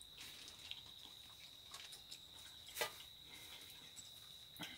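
A faint, steady, high-pitched insect trill, like a cricket, runs throughout. Two short clicks from eating come over it, one about three seconds in and one near the end.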